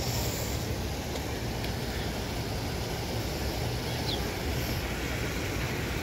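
Steady rush of water from a rock cascade fountain pouring into a pond, with a brief high chirp about four seconds in.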